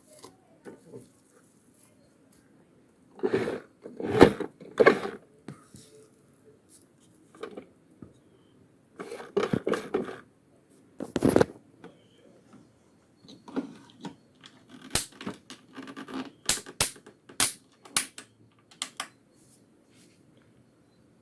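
Handling noises: irregular clicks, knocks and scraping rustles in short clusters, the loudest a run of sharp clicks in the later part.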